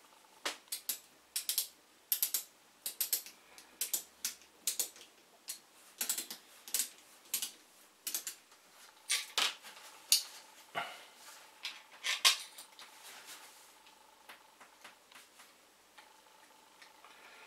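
A small pointed hand tool scratching against the edge of a small black plate in short, sharp, irregular strokes, about one or two a second, dying away to faint ticks after about twelve seconds.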